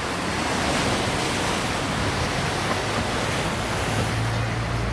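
Steady rushing noise of ocean surf. A low steady hum comes in near the end.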